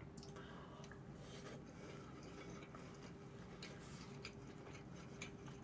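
Faint chewing of food, with a few soft clicks scattered through, over a low steady hum.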